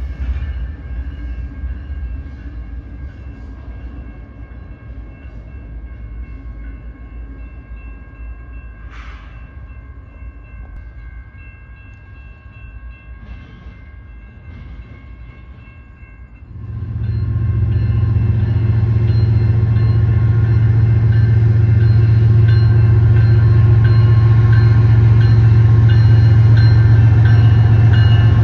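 Train rumbling past and fading, with a faint steady whine above it. About two-thirds of the way through, a diesel locomotive's engine comes in suddenly, loud and close, and keeps running steadily.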